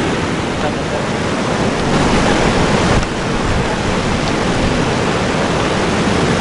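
Sea surf washing onto the shore in a steady, loud rush, the waves running high.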